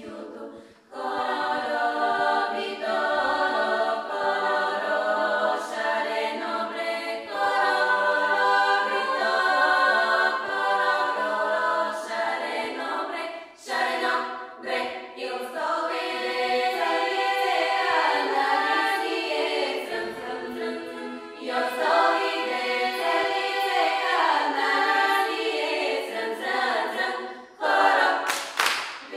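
Bulgarian women's folk choir singing a cappella in close multi-part harmony, the phrases broken by short pauses about a second in and near halfway. Near the end the singers clap their hands a few times, sharply.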